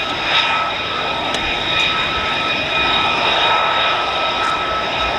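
F-35A Lightning II's single Pratt & Whitney F135 turbofan running at low power as the jet rolls out along the runway after landing: a steady jet whine with several high held tones over a rushing noise.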